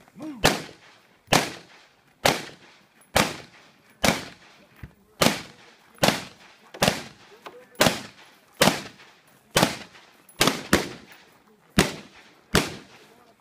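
AR-15 rifle shots, about fifteen of them at a steady pace a little under one a second, each a sharp crack with a short echoing tail, including a quick pair about two-thirds of the way through.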